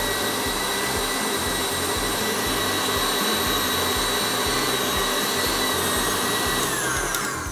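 Electric stand mixer running at high speed as it beats cream cheese frosting in a glass bowl, a steady motor whine. Near the end the whine drops as the mixer slows and stops.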